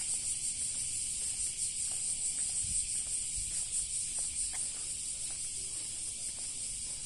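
A steady, high-pitched insect chorus shrilling with a faint pulse.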